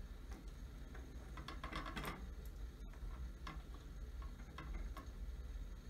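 Small sharp clicks and taps as the parts of a Valken V12 airsoft HPA engine are handled and pressed back into its housing. There is a quick run of clicks about one and a half to two seconds in, then single clicks every second or so.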